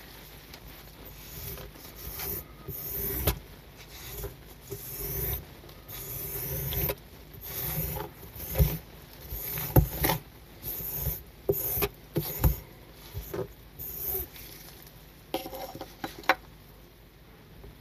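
Miniature squeegee dragged in repeated strokes across a water-soaked miniature wool rug, a wet scraping and rasping that pushes dirty water off the pile. A few sharp clicks come in among the strokes.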